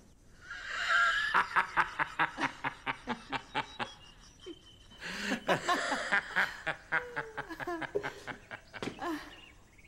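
A woman and a man laughing: a long run of quick, breathy laughs, a short lull, then a second run.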